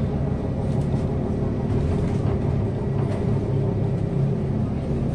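MAZ-303 city bus engine and drivetrain running steadily under way, a low hum heard from inside the passenger cabin, with a few faint rattles.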